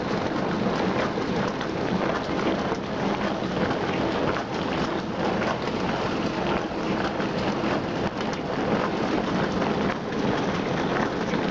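Hyundai DW 6012BG dishwasher running a wash cycle: water from the spray arms hitting the dishes and the tub walls in a steady rush.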